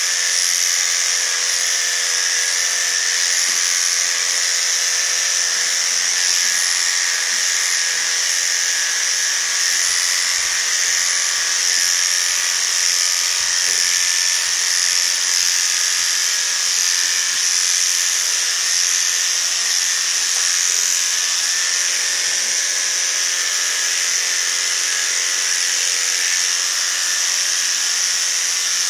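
Electric dog-grooming clippers running steadily as they clip a Yorkshire Terrier's coat, a constant high motor buzz.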